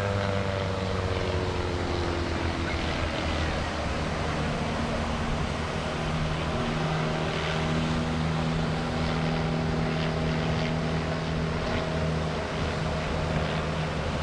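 Pitts aerobatic biplane's piston engine and propeller droning in flight; the pitch falls over the first few seconds, then holds steady.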